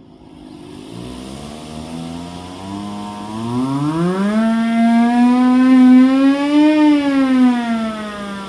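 Hand-crank siren driven with a blower, winding up from a low pitch to a loud wail that peaks about two-thirds of the way through, then starting to wind down. A steady hiss runs underneath.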